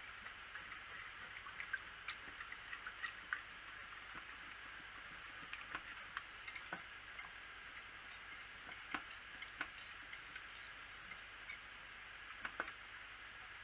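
Wire whisk stirring soap batter of oils and lye solution in a ceramic slow-cooker crock, its wires clicking and tapping irregularly against the sides of the pot, over a faint steady hiss.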